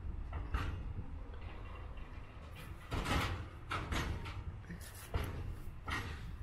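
Covered freight wagons of a freight train rolling slowly past: a low rumble of wheels on rail, broken by irregular metallic clanks and knocks, the loudest about three seconds in.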